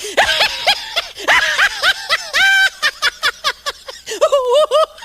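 A puppy yipping and whining, a rapid string of short high-pitched cries with a few longer drawn-out whines in the middle.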